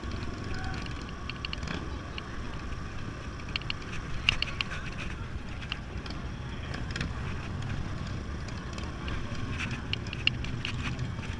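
Yamaha Zuma 125 scooter's single-cylinder four-stroke engine running at low road speed, a steady low rumble mixed with wind on the handlebar-mounted microphone, with scattered sharp clicks and rattles.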